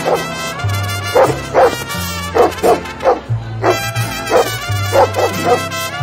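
A large dog barks repeatedly, about a dozen short barks, many in quick pairs, over background music with a steady bass line.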